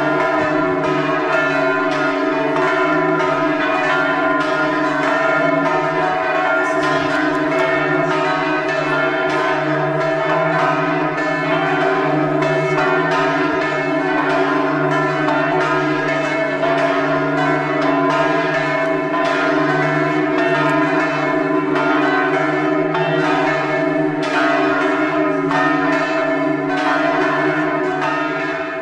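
Church bells ringing a continuous peal: strokes fall in quick succession while the ringing of earlier strokes holds underneath.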